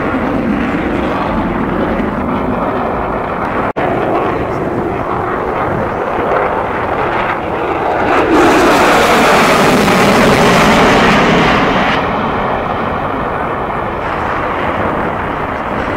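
Loud, continuous jet noise from an F-22 Raptor's twin Pratt & Whitney F119 turbofans as it manoeuvres overhead. The sound swells to its loudest and brightest, with a strong hissing top end, from about halfway to three-quarters of the way through as the jet passes closest, then eases off. It cuts out for an instant just under a quarter of the way in.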